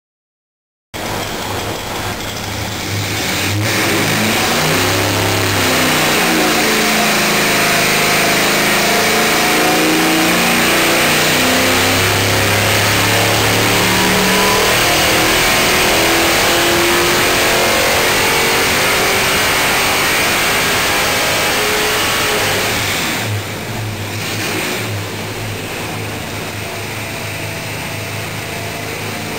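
454 cubic-inch small-block Chevy stroker V8 running under load on an engine dyno, its pitch climbing steadily through an acceleration sweep for about twenty seconds. Near the end the revs drop back and the engine quietens, then its pitch starts to climb again.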